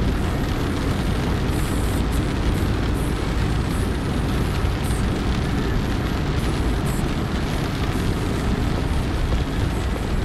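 Steady rumble and hiss inside a car driving in heavy rain: tyres on a wet road and rain on the body.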